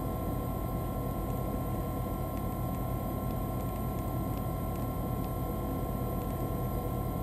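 Steady low drone with a constant high-pitched whine inside a standing railway carriage, the hum of the train's onboard equipment, with a few faint ticks.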